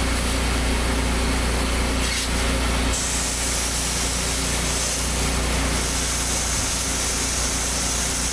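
Portable grain auger running, carrying grain from a semi trailer up into a steel grain bin: a steady machine drone with the hiss of flowing grain over it.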